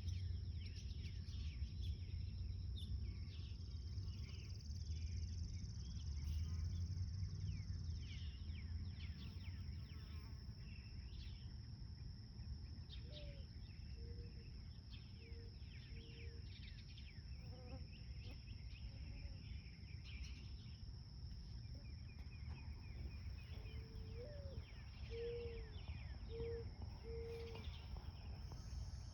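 Garden insects keep up a steady high drone while small birds chirp. A lower bird call, one rising note followed by three short notes, comes twice, about halfway through and again near the end, over a faint low rumble.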